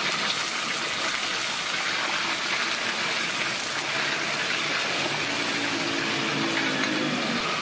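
Hot oil sizzling in a wok as shrimp deep-fry, a steady, even hiss of bubbling fat.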